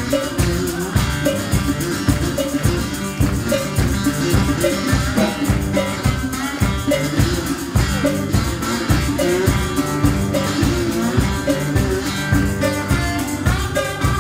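Live blues band playing an instrumental passage: guitar and drums keeping a steady beat, with a tambourine shaken along.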